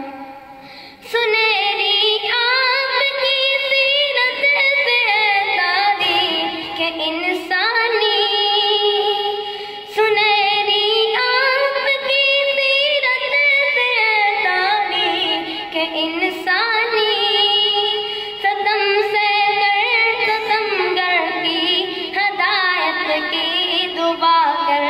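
A boy's high voice singing a naat solo, a drawn-out melody with no instruments. The singing drops away briefly at the start and comes back about a second in.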